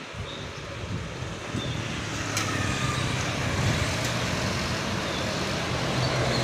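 A loaded Mitsubishi Canter diesel truck approaching and passing close by, its engine running with a low, steady drone that grows louder as it nears, over passing road traffic. A sharp click comes about two and a half seconds in.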